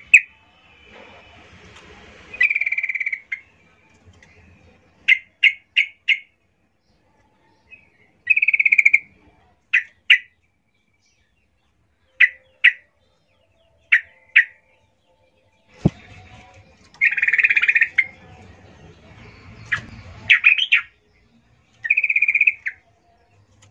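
Yellow-vented bulbul calling: short sharp chirps, singly, in pairs and in a quick run of three, between a few longer buzzy notes, the call the uploader presents as a female calling for males. A single sharp knock sounds about 16 s in.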